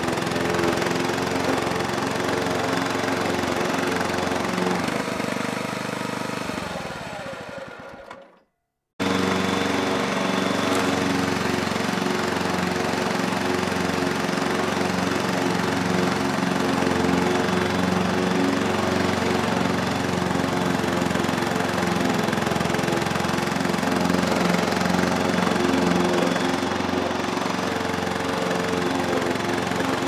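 Walk-behind petrol lawn mower engine running steadily. About seven seconds in it winds down and cuts out, and after a second of silence it is running again at full level abruptly.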